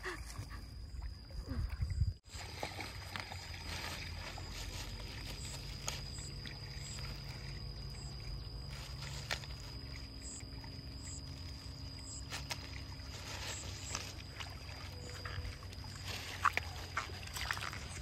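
Rice-field ambience: a steady high-pitched insect drone with scattered short bird chirps over a low, even background rumble.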